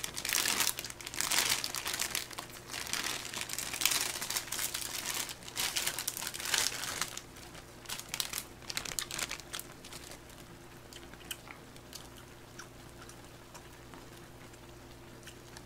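Plastic instant-ramen packet crinkling and tearing as it is opened and the noodle blocks are pulled out. It is dense for about the first seven seconds, then fades to a quieter stretch with a few light clicks.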